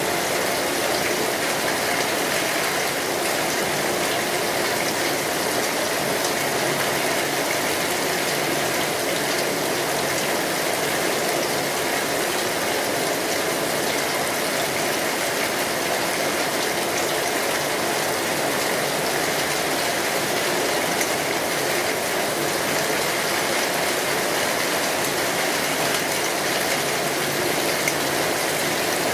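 Steady rain falling on a street: an even, unbroken hiss.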